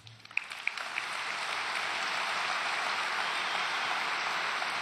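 Large audience applauding: a few scattered claps about half a second in, swelling within a second into steady applause.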